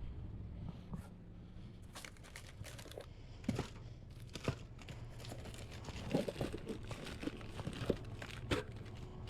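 Plastic shrink-wrap being crinkled and torn while drink packs are handled for restocking, with scattered short knocks throughout.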